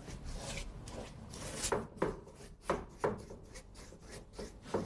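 Paintbrush scrubbing and swishing across a stretched canvas, laying on an oil-paint base coat in quick strokes, a few of them sharper and louder than the rest.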